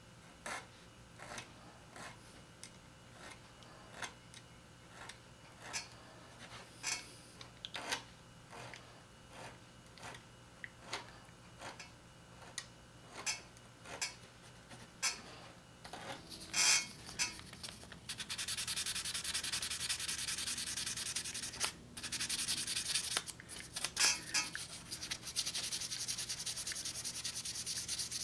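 Metal frets on a cigar box guitar neck being crowned with a file. At first it is separate scraping strokes, a little under two a second. About two-thirds of the way in it turns to faster, nearly continuous rubbing.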